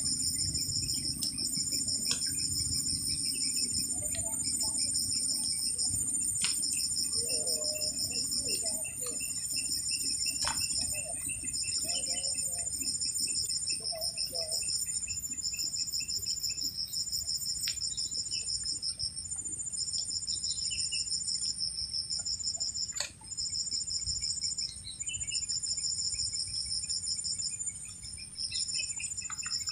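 Crickets and other insects chirping: pulsed high trills come in bursts of one to two seconds with short gaps, over a steady thin high-pitched drone, with a few light clicks.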